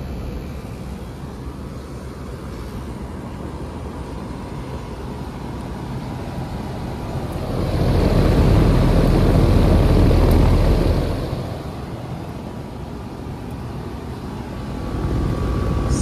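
Outdoor air-conditioning units running with a steady low hum. About eight seconds in, a loud rush of air swells for about three seconds as the microphone passes over the top-discharge fan of a running Trane XB13 condenser, then falls back to the hum.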